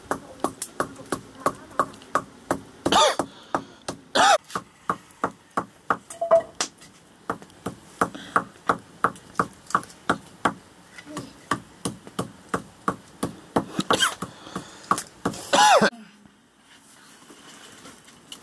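A pestle pounding chilies and spices in a carved wooden mortar, a steady knock about three times a second that stops about 16 seconds in. A few short, loud calls cut in over the pounding.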